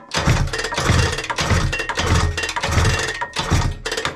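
Tuned 225cc Lambretta TS1 two-stroke engine in a test stand being kicked over again and again, about six heavy kicks with clanking from the kickstart mechanism. The engine does not catch and run.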